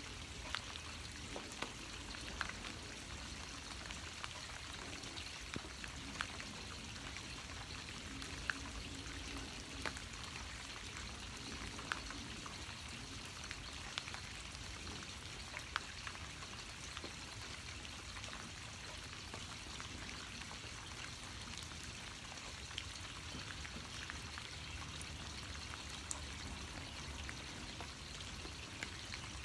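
Steady rain falling, an even hiss with occasional sharper ticks of single drops landing.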